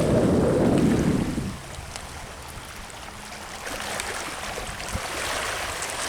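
Wind buffeting the microphone with a loud low rumble, which drops away about a second and a half in. A quieter, steady wash of surf is left underneath.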